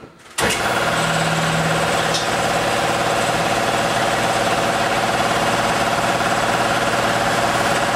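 A shop machine switches on abruptly and keeps running steadily, a motor's even drone with a steady tone over a rushing noise; a single click sounds about two seconds in.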